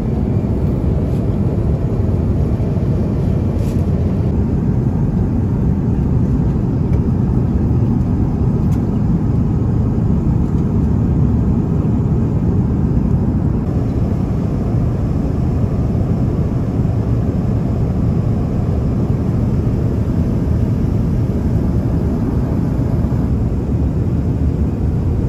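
Airbus A350-900 cabin noise in flight: a steady, even low rumble and rush of airflow and engines heard from inside the passenger cabin.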